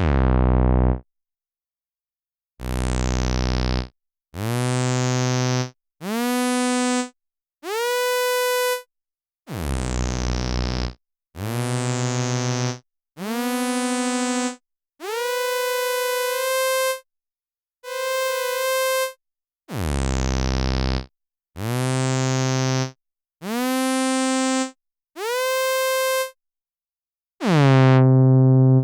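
Behringer Toro analog bass synthesizer sounding a series of about fifteen separate held notes, each around a second long with short gaps between them, alternating deep bass notes and higher tones. Several notes slide up into pitch at the start, and others begin bright and quickly turn duller.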